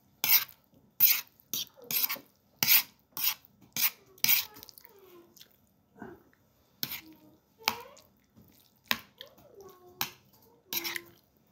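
A spoon scraping across a plate of rice and curry while eating: about a dozen short, sharp scrapes, one or two a second, with a pause in the middle.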